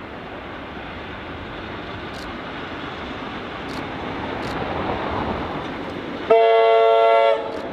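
A Tait electric suburban train approaching, its running noise growing steadily louder, then sounding its horn in one steady blast of about a second near the end.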